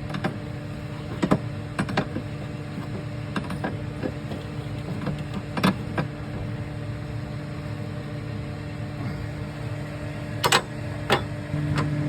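Scattered sharp clicks and knocks of hand tools and metal parts being handled during work on a van's A/C lines, over a steady machine hum that gets louder near the end.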